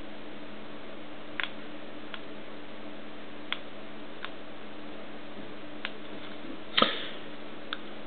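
Push buttons on a two-channel 433 MHz garage door remote control clicking as they are pressed, about seven scattered presses over a steady hiss. The buttons are being pressed while trying to program the remote, which will not take the code. The loudest click comes just before the end, with a short rustle of fingers on the plastic.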